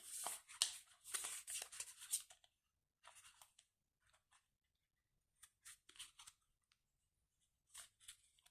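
Rustling and crinkling of a phone box's paper and card packaging being handled. It is dense for the first two seconds or so, then there are a few scattered light rustles and clicks.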